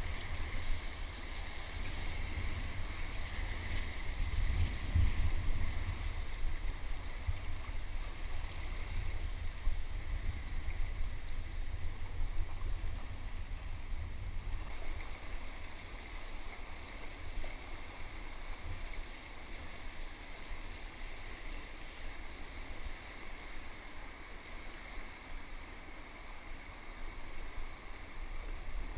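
River water rushing and splashing around an inflatable kayak running a rapid, over a heavy low rumble that is strongest about five seconds in and eases toward the end.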